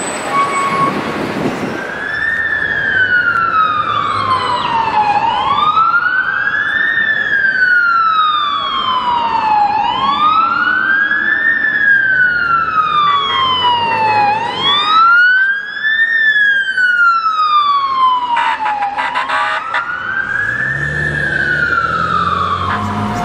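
Police siren in wail mode: a pitch that climbs and then slowly falls, repeating about every four and a half seconds, over city traffic rumble.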